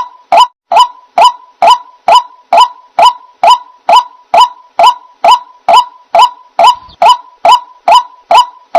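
White-breasted waterhen calling: a short, harsh note repeated very evenly, about two to three times a second.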